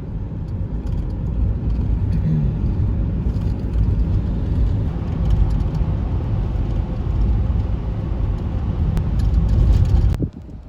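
A car driving along a highway: a steady low rumble of road and engine noise that cuts off abruptly near the end.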